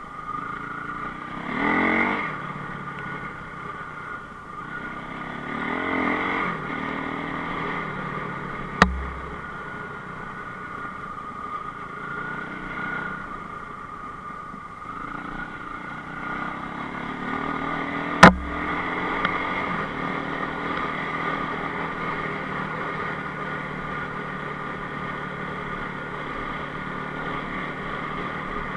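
Enduro motorcycle engine running, revving up about two seconds in and again around six seconds. Two sharp knocks cut through, one near nine seconds and a louder one a little past halfway.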